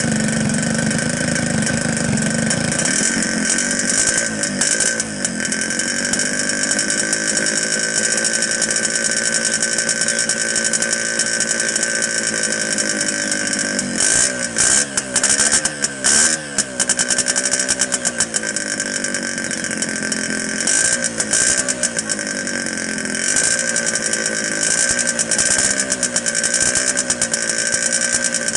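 Yamaha RX King's single-cylinder two-stroke engine idling, its speed dipping and picking back up several times about halfway through and again later, while its carburettor is worked by hand.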